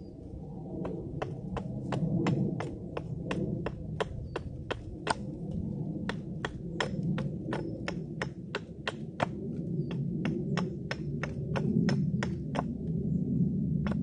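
A hammer striking over and over at an even pace, about three sharp blows a second with a brief pause partway through, over a steady low rumble.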